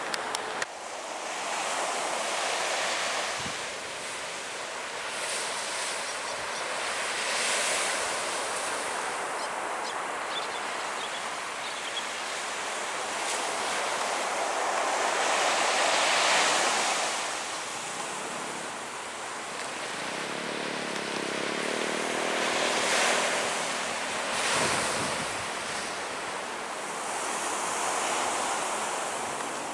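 Surf washing on a beach, a hissing rush that swells and falls away every few seconds. A faint low drone comes and goes about two-thirds of the way through.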